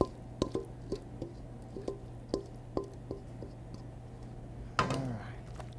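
Stainless steel mixing bowl knocking and ringing as dip is scraped out of it into an aluminium foil pan: a series of short ringing taps, about two or three a second, over a steady low hum. A brief vocal sound comes near the end.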